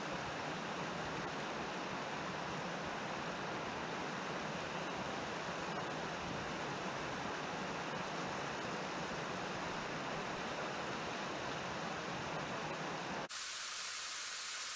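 Steady rushing outdoor noise with no distinct events; about thirteen seconds in it abruptly changes to a thinner, higher hiss.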